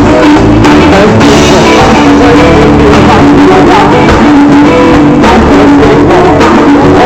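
A live band playing loud music through the PA during a sound check, with guitar and drum kit.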